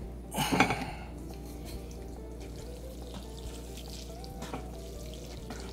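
A short wet slurp about half a second in, over faint background music.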